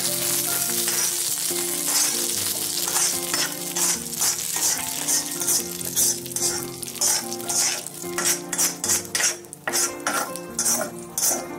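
Hot oil still sizzling in a kadai as a steel spoon scrapes fried green chillies out of it into a steel mixer jar. The sizzle fades over the first half, and the spoon's scrapes and clinks on the metal become distinct, quick strokes in the second half.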